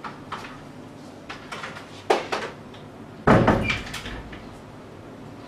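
Wooden room door being shut: a sharp knock about two seconds in, then the door closing with a loud thud about a second later, with a few lighter handling knocks earlier.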